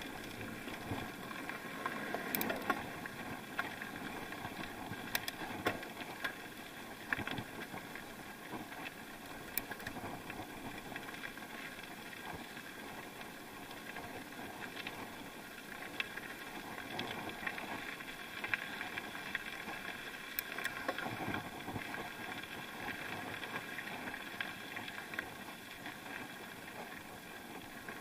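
A bike being ridden on the unpaved track to Cofete, heard through an action camera: a steady running noise with frequent irregular clicks and knocks as it jolts over the rough surface.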